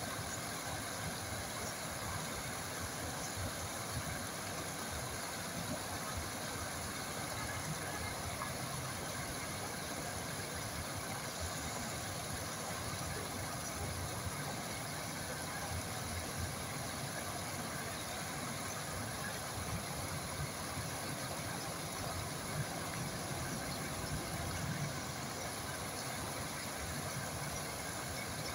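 Steady, continuous rush of flowing water.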